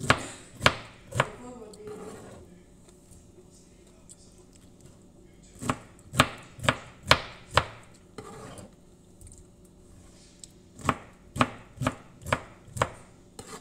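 Kitchen knife chopping through peeled pineapple, each stroke a sharp knock of the blade on the cutting surface. The knocks come in three runs of about two a second, with pauses between.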